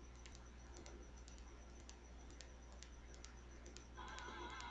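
Faint, irregular clicks of a computer mouse and keyboard over a low steady hum. About four seconds in, a faint wavering tone begins.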